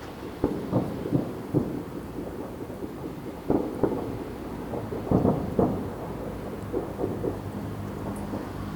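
New Year's fireworks going off in many irregular, overlapping low booms and sharper pops, with a heavier cluster of bangs a little past the middle.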